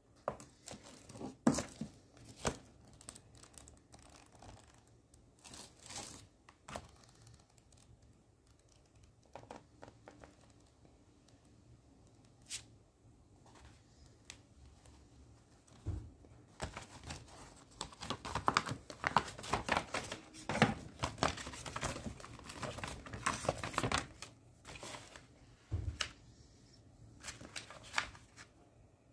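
Crinkling and tearing sounds of something being handled by hand. Scattered sharp strokes come first, then a dense stretch from about 17 to 24 seconds in.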